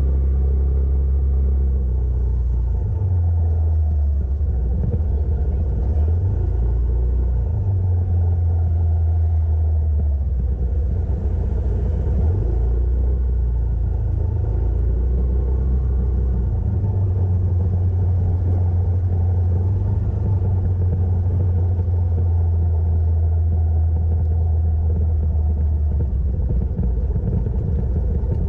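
Motorcycle engine running while riding, a steady low hum whose pitch shifts up and down every few seconds as the speed changes.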